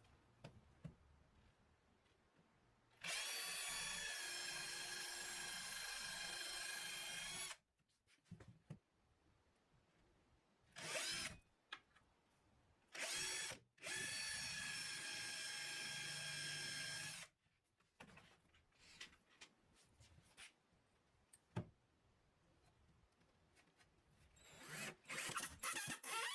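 Power drill running at a steady pitch in two runs of about four seconds each, with two short trigger bursts between them. A quick cluster of small knocks and clatter comes near the end.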